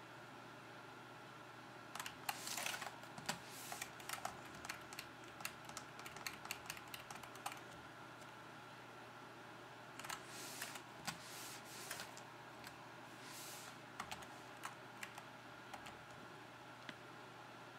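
Computer keyboard keys being pressed in quick runs of clicks, the arrow, Enter and Esc presses that step through the BIOS voltage menus. There are two runs, one starting about two seconds in and another about ten seconds in.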